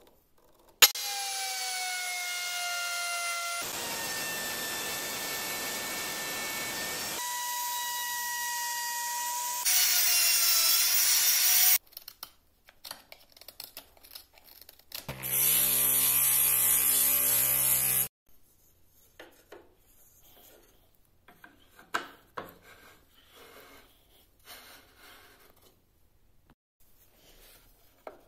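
Woodworking power tools running in a string of short clips that start and stop abruptly, each with a steady motor whine, cutting or sanding wood. After that comes quieter hand work on the wood: light scrapes and scattered taps.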